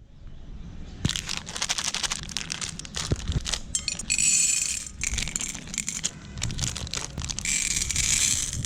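Meat grinder crushing candy-coated chocolates: a dense run of crunching and crackling, with two stretches of hissing rustle, one around the middle and one near the end.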